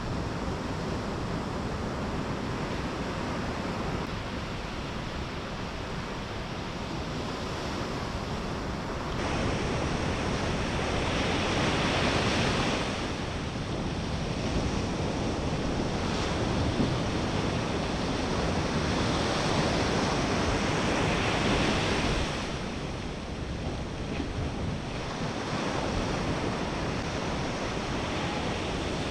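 Ocean surf washing onto a beach, a steady wash that swells louder twice as bigger waves break, with wind buffeting the microphone.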